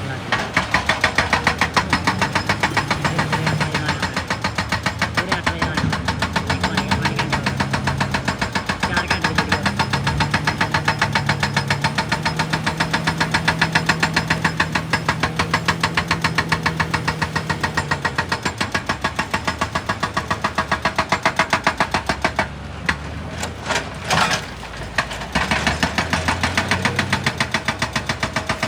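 Excavator-mounted hydraulic breaker hammering rock in a fast, steady stream of blows over the excavator's running diesel engine. The hammering stops briefly twice about three-quarters of the way through.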